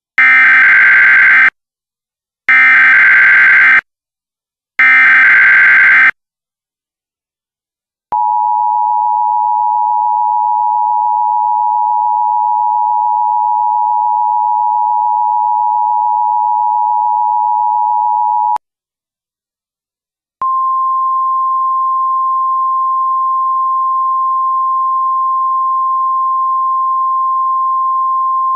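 Emergency Alert System tones: three short bursts of digital SAME header data, then the two-tone EAS attention signal held steady for about ten seconds. After a short gap, the single steady NOAA Weather Radio warning alarm tone starts.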